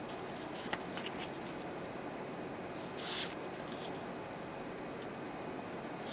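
Glitter nail sticker sheets handled and slid against one another: brief plastic rustles, a couple of faint ones about a second in and the loudest near the middle, over steady low room noise.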